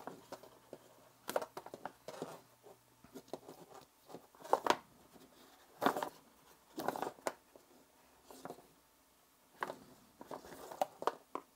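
Braided USB-C cable and its rubber cable tie being handled: scattered light rustles, rubs and small taps at uneven intervals.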